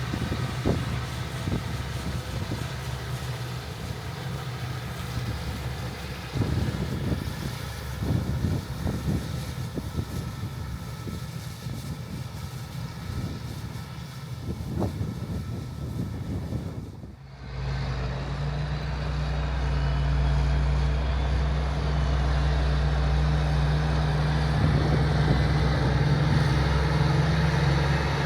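John Deere 8270R tractor's six-cylinder diesel engine running while it pulls a liquid manure tanker through the field, with irregular rattles and knocks over the first half. About 17 seconds in the sound cuts to a louder, steady engine drone.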